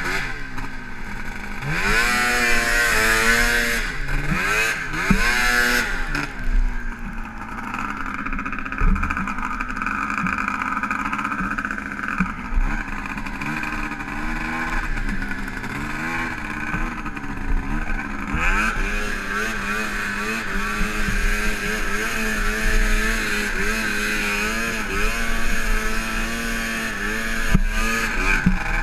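A 2002 Ski-Doo MXZ X 440 snowmobile fitted with an 800 two-stroke engine, running under way and revving up and down repeatedly as the throttle is worked. A steady rush of wind noise runs under it.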